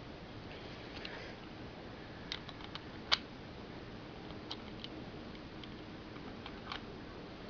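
Parts of a Hades Kerbecs Beyblade top (metal wheel, clear wheel, spin track and tip) being fitted together by hand: a few scattered light clicks, the sharpest about three seconds in, over a low hiss.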